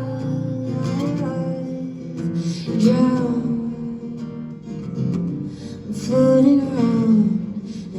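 Live band music led by guitar, with a melodic line that slides up and down over sustained low notes.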